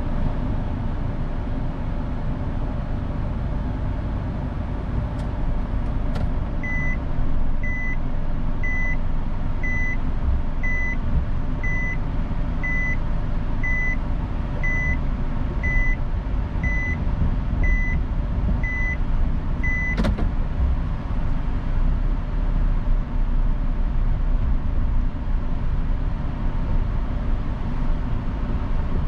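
Car cabin with the engine running, and the reverse-gear warning beeping about once a second for some thirteen seconds while the car backs up. The beeping stops with a click as it is shifted out of reverse, and the car drives off.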